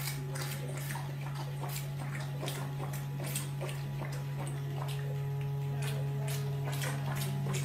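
Liposuction suction with the aspiration cannula stroked in and out of fat: a steady low hum with quick, irregular wet clicks and slurps, a few a second.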